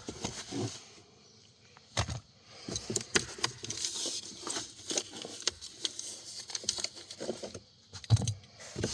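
Things being taken out of a car's glove box by hand: scattered clicks, knocks and light rustling, with a sharper click about two seconds in.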